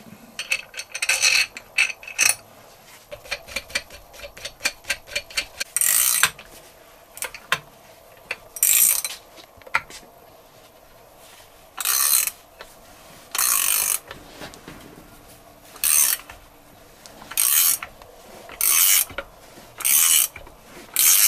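Socket ratchet clicking as it winds a threaded crank-puller tight, drawing a Vespa PX crankshaft into its main bearing. It starts with fast, light clicking, then settles into short bursts of clicks every second or two as the handle is swung back and forth.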